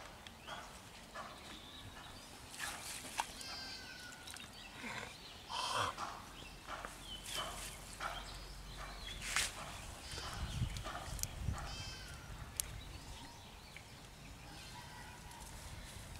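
Animal calls out in the open: many short, separate calls, several of them quick high trills, over a quiet rural background, with a low rumble coming in about six seconds in.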